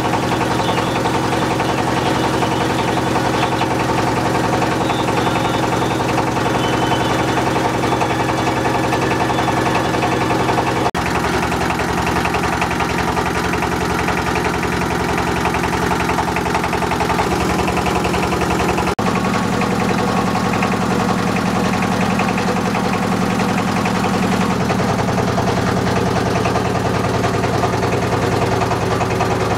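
Engine of a wooden river boat running steadily, its even hum shifting in pitch a few times.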